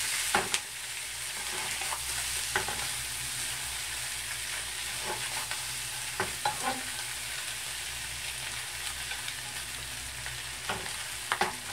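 Fried tofu, garlic chives and sliced sausage sizzling in mayonnaise in a frying pan while being stirred with chopsticks, with a few light knocks of the chopsticks and pan along the way.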